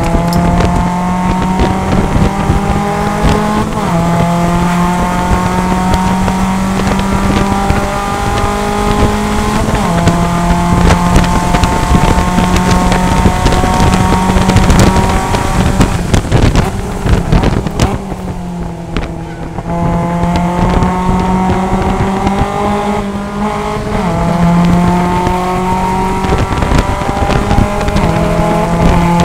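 Heard from inside the cockpit: a Mazda MX-5 Cup race car's four-cylinder engine at full throttle, its pitch climbing through each gear and dropping back at several upshifts. About two-thirds of the way through it eases off and drops lower for a corner, then pulls hard up through the gears again.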